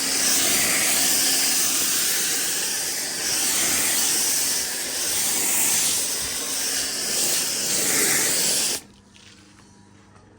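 Sprayer hissing steadily as cleaning product is sprayed onto a car, stopping suddenly near the end.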